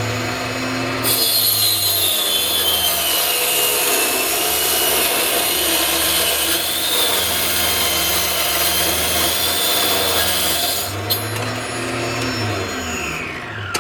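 Micro table saw with a 2-inch blade running and ripping a thin strip of veneer for about ten seconds, its whine sagging in pitch under the load of the cut. Near the end the cut finishes, a click sounds and the motor winds down.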